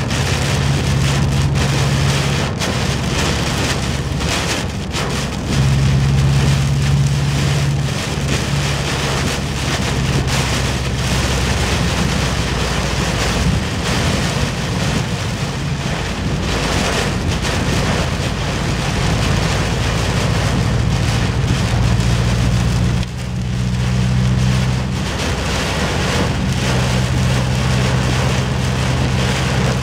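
Heavy downpour beating on the roof and windshield of a Subaru Impreza, heard from inside the cabin as a loud, steady hiss, over a low hum from the moving car that comes and goes.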